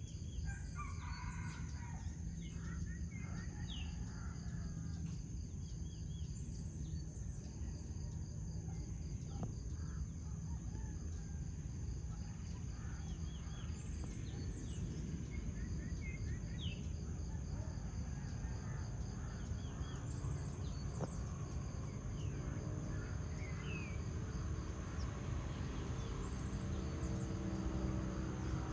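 Outdoor dawn ambience: a steady, pulsing trill of insects such as crickets, with scattered short bird chirps and calls throughout, over a low steady rumble that grows a little louder near the end.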